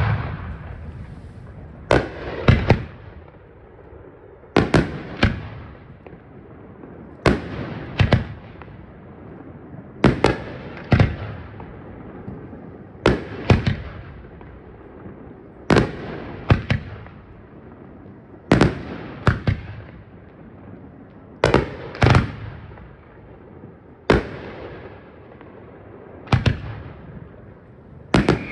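Aerial firework shells bursting in a display: sharp bangs come mostly in pairs, a pair about every two and a half to three seconds, each bang dying away slowly with a low rumble between them.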